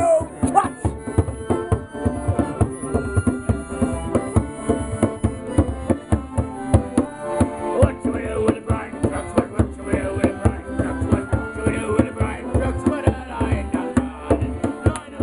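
Piano accordion playing a lively folk tune in chords and melody, over a steady beat of about three strokes a second.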